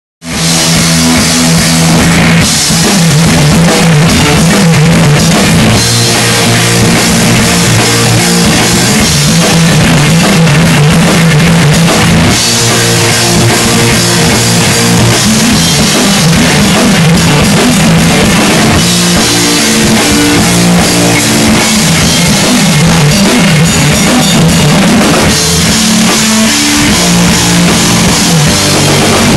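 A stoner rock band playing live: guitar and a full drum kit with cymbals, loud and dense throughout.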